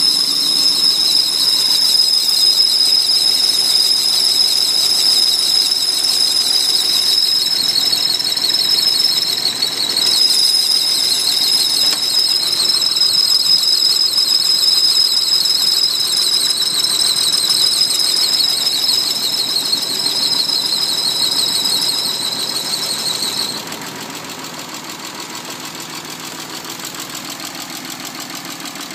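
Mazda KL 2.5-litre V6 running at idle with a loud, steady, high-pitched squeal over it. The squeal cuts off suddenly about 23 seconds in, leaving only the engine idling.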